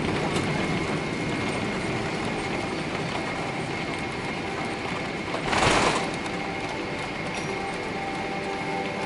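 Cabin noise of a Boeing 777-300 on its landing rollout: a steady rumble and rush with a thin high whine, spoilers raised. A brief louder rush comes about five and a half seconds in.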